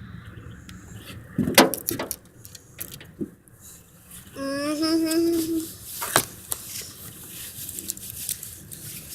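A child's voice making one drawn-out, wordless sound a little over four seconds in, with a few sharp clicks and taps before and after it.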